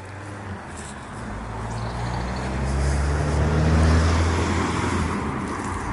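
A motor vehicle passing on a nearby road: a low engine hum and tyre noise that swells to its loudest about four seconds in, then fades away.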